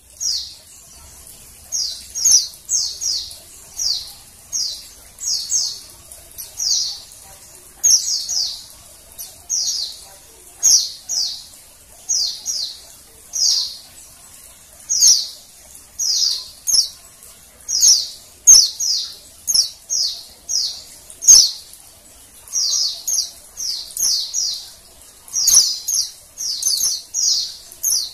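Female white-eye (pleci) calling: short, high, downward-slurred chips, given singly or in quick runs of two or three, roughly once a second. A few sharp clicks are heard among them.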